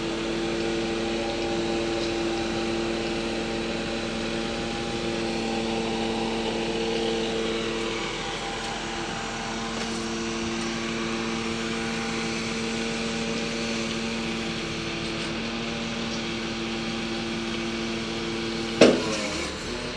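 A lorry-mounted loader crane runs its hydraulics off the truck's engine while lifting a pallet. It makes a steady, even whine made of several tones. A single sharp knock comes near the end.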